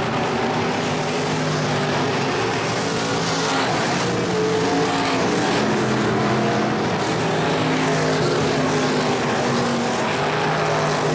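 Several IMCA dirt-track stock cars racing, their V8 engines at full throttle, the engine notes rising and falling as the cars pass and power through the turns.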